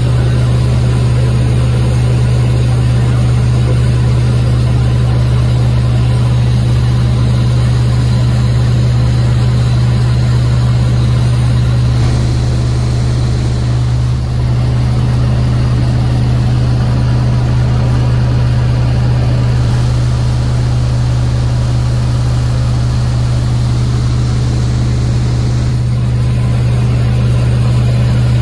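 PJC-2 Harlow's Warner radial engine and propeller droning steadily in cruise flight, heard inside the cockpit.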